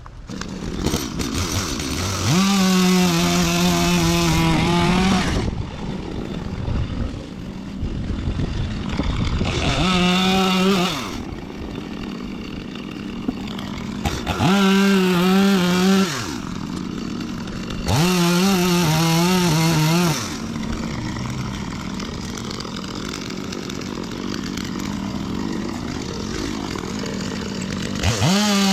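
Two-stroke chainsaw revved to full throttle five times, each burst held for one to three seconds with a wavering pitch before falling back to idle; it is cutting wood into sawdust.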